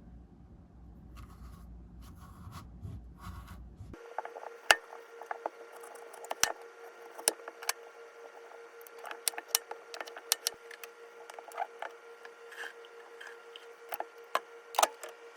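A low rumble for about the first four seconds, then a steady hum with scattered light clicks and taps.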